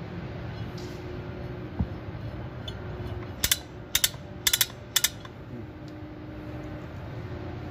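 Manual chain block's brake ratchet and pawls clicking as its hand wheel is turned during reassembly: about eight sharp clicks in quick pairs in the middle, after a single dull knock about two seconds in, over a steady low hum.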